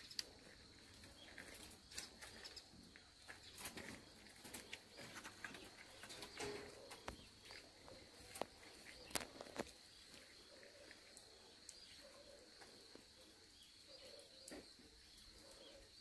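Near silence: faint outdoor ambience with scattered soft clicks and a faint steady high-pitched tone.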